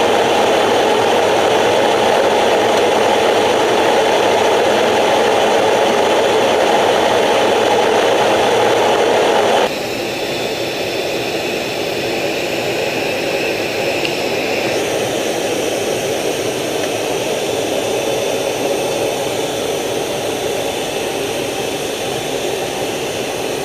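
Steady jet engine noise, as of carrier aircraft running on the flight deck, with no rhythm or breaks. About ten seconds in it drops abruptly to a quieter, duller steady noise, as at a cut between shots.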